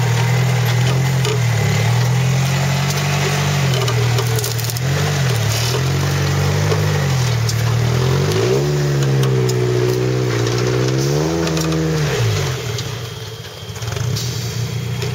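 Trial 4x4 prototype's engine revving up and down as the vehicle climbs a steep slope. The revs are held high for several seconds, then drop off sharply about twelve seconds in.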